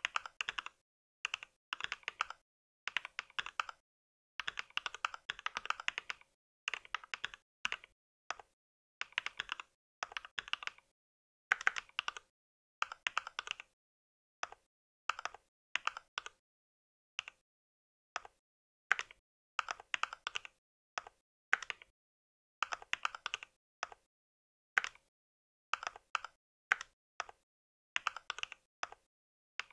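Typing on a mechanical keyboard: quick runs of keystrokes in bursts of a second or two, with short pauses between.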